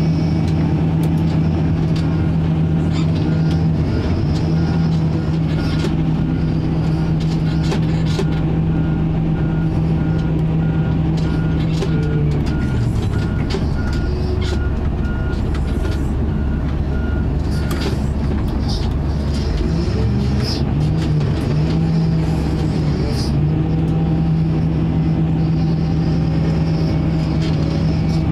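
Case 621G XT wheel loader's diesel engine running, heard from inside the cab; its engine speed drops and comes back up twice, around the middle and again a little later. A rapid, steady series of high beeps, a reversing alarm, sounds from about two seconds in until about two-thirds of the way through.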